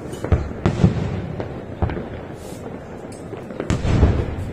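Aerial firework shells bursting: a series of sharp bangs at irregular intervals, loudest near the end.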